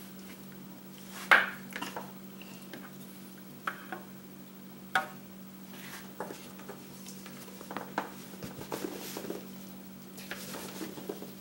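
A spatula scraping melted chocolate out of a nonstick saucepan into a bowl, with a few sharp knocks of the pan and spatula against the bowl, the loudest about a second in, and clusters of smaller scrapes later. A steady low hum runs underneath.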